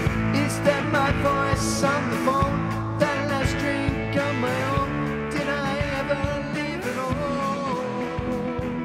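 Rock band music with a steady drum beat.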